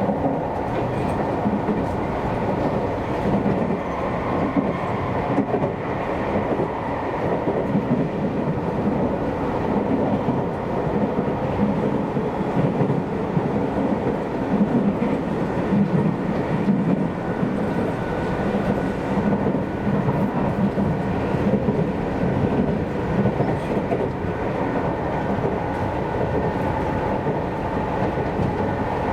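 Seibu Railway commuter train running between stations, heard from inside the carriage: a steady rumble of wheels on rail with a faint steady whine above it.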